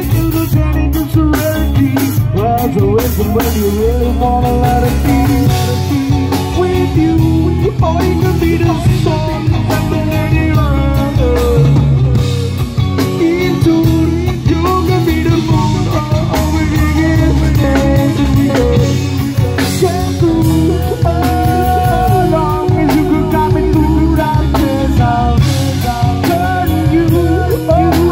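A live rock band playing loud through a PA: drum kit, electric bass and guitar, with a man singing lead into a handheld microphone.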